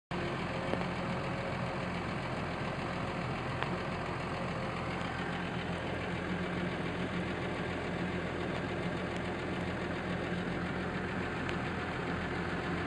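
New Holland T6050 tractor engine running steadily at a constant speed, heard from inside its cab.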